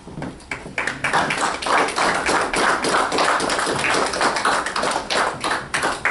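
A small group of people applauding, a dense patter of hand claps that swells about a second in and carries on steadily.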